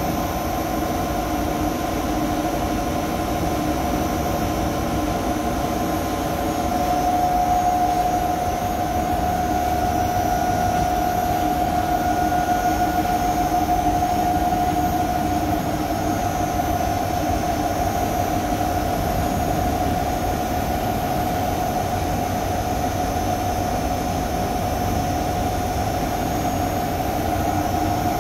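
A 50 kW rotary generator set running steadily without load, its output at about 230 volts and 50 hertz. It gives a continuous low drone with a steady mid-pitched whine, swelling slightly for a few seconds a quarter of the way in.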